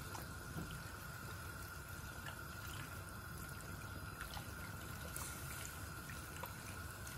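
Beef pieces sizzling and bubbling in their own juices in a pot, with light scattered clicks from a spatula stirring them, over a faint steady high hum.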